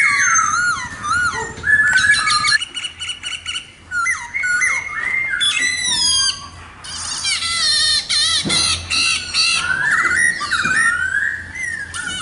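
Black-throated laughingthrush (khướu mun) singing a long, varied song of loud whistled notes, slurred up-and-down glides and rapid trills, changing phrase every second or so.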